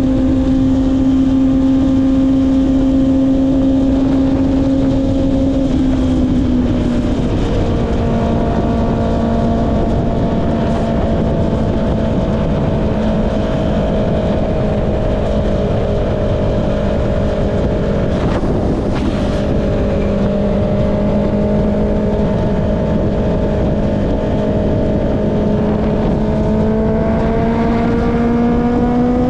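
Honda CB650R's inline-four engine running through an Akrapovic exhaust at a steady cruise, with wind rushing over the microphone. The engine note dips slightly about six seconds in, holds even, then rises as the bike accelerates near the end.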